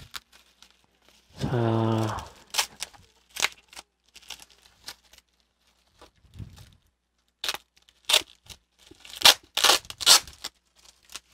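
Bubble wrap and plastic packing being pulled open and torn off a graphics card: a run of sharp crinkles and short ripping sounds, coming thicker and louder in the second half. A short wordless hum from the voice about a second and a half in.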